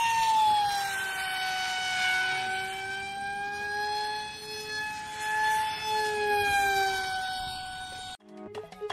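Whine of a flying wing's NTM 2200kv brushless motor spinning a 6040 two-blade propeller in flight. The tone drops in pitch about a second in, then wavers gently up and down, and cuts off abruptly near the end.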